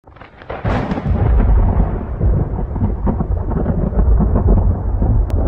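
Thunderstorm sound effect: a deep, continuous rumble of thunder with crackling, swelling up within the first second and then running on steadily.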